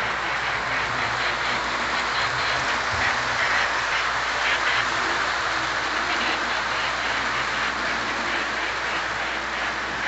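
Lionel O-gauge freight train running past on three-rail track: a steady rumble and clatter of wheels on the rails, mixed with the 4-8-4 Northern steam locomotive's sound-system chuffing.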